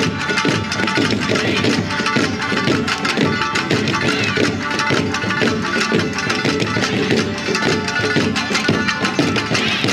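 Tsugaru shamisen ensemble playing, the plectrum strikes giving a fast run of sharply struck notes.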